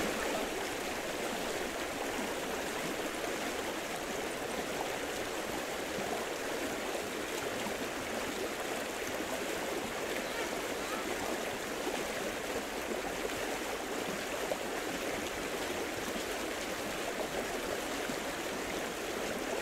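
Steady rushing of flowing water, an even noise that does not change.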